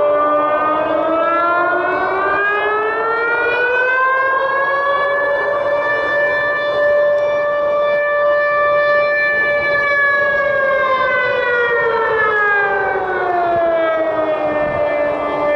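Civil-defence warning siren wailing: the pitch rises slowly over the first few seconds, holds high for several seconds, then falls back near the end and begins to rise again.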